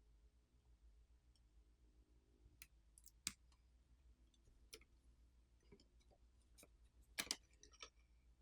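Faint, scattered clicks and taps of small hand tools and parts being handled on a tablet's internals, with a louder pair of clicks about seven seconds in.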